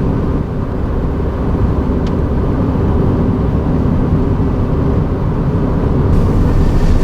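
1989 Honda Accord LXi's four-cylinder engine running at fairly high revs with a deep rattling, knocking noise. The owner feared a rod going out; the knock was later traced to a failing water pump pulley.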